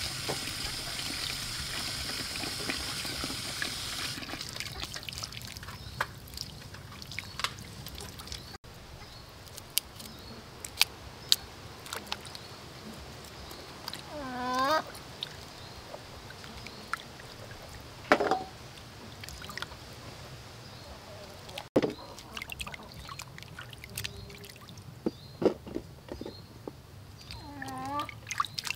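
Tap water pouring into a steel basin, then hands swishing and rubbing vegetables in the basin's water, with small splashes and clicks throughout.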